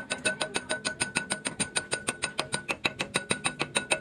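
Rapid, evenly spaced metal taps, about nine or ten a second, of a chipping hammer knocking slag off a freshly laid stick-weld bead. A faint steady ringing tone sounds under the taps.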